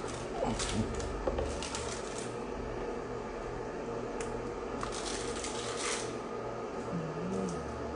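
A plastic mug scraping and knocking in a basin of thick rice batter as it is scooped and poured into a bamboo tube, in scattered light clicks and scrapes over a steady low hum.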